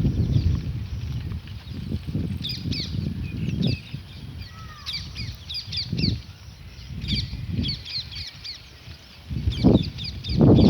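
Birds chirping over and over in quick short high notes, over an uneven low rumble that swells loudest near the end.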